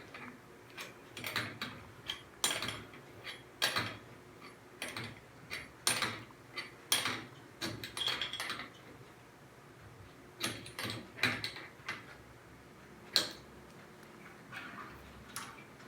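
Irregular metallic clicks and clinks, about twenty short strikes with a few lulls, from a plumbing tool and pipe fittings being handled as the cold-water line is connected to an electric water heater.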